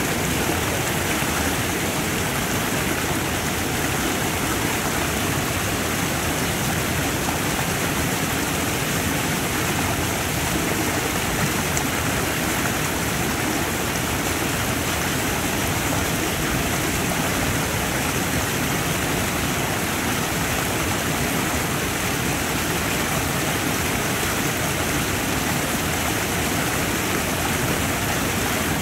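Rain-swollen creek running fast over rapids: a steady, unbroken rush of water.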